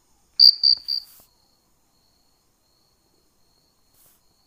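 A cricket chirping: three loud, high chirps in quick succession about half a second in, over a faint steady trill at the same pitch.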